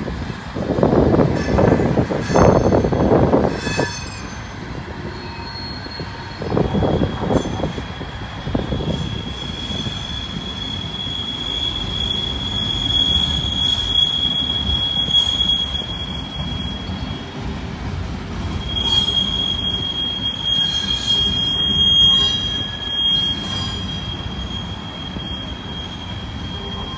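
CN freight train's gondola cars rolling past, with two loud rumbling surges in the first nine seconds. From about nine seconds in, a steady high-pitched wheel squeal sets in and holds, breaking off briefly about eighteen seconds in.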